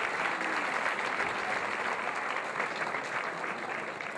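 Audience clapping, a dense steady applause that eases slightly near the end.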